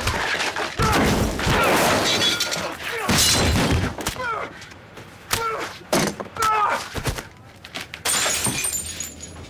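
Staged fist fight: a run of punches, thuds and crashes with something smashing and breaking, amid shouts and grunts.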